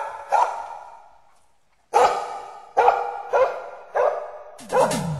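A dog barking, six loud barks with a gap of about a second and a half after the first, the rest coming about every half second to second. Music starts in right at the end.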